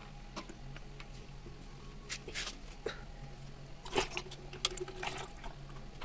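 Faint clicks and short scrapes of hands working a motorcycle's engine oil drain plug loose and handling a cut-off plastic bottle set under it to catch the draining oil, over a low steady hum.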